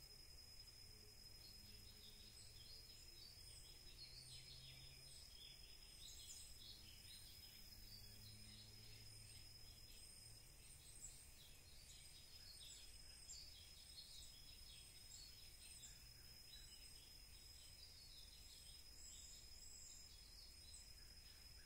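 Faint outdoor ambience close to silence: many small, scattered bird chirps, a steady high thin tone, and a faint low hum that comes and goes.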